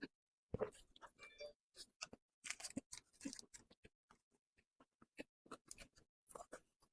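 Close-miked eating sounds of a person chewing soft cream cake: irregular quiet wet mouth clicks and smacks.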